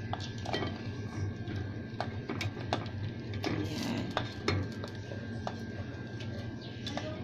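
A wooden spatula knocking and scraping against a pot and a ceramic serving dish as pieces of pork adobo and potato are spooned across: scattered short clinks and knocks over a steady low hum.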